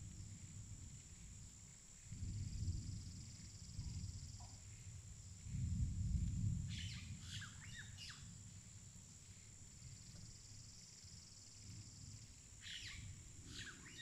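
Forest ambience: a steady high-pitched insect drone, with two bursts of short, falling bird calls, one about halfway through and one near the end. Low rumbling noise swells up twice in the first half.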